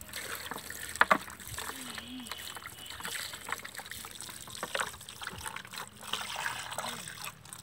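Water poured from a bucket, trickling and splashing over whole raw chickens on a steel plate as hands rub and wash them. There is one sharper hit about a second in.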